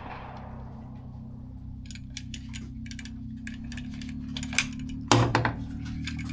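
Light metallic clinking of spent brass cartridge cases, a quick irregular run of sharp clicks with a louder clatter about five seconds in, over a steady low hum.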